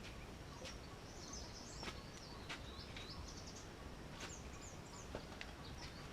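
A small bird singing: quick, high twittering phrases, with a few faint clicks and knocks in between.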